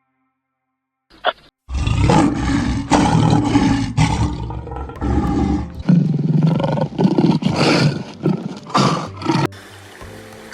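A big cat roaring: a run of loud, rough roars beginning about a second and a half in, the later calls shorter and spaced by brief pauses, dying away near the end.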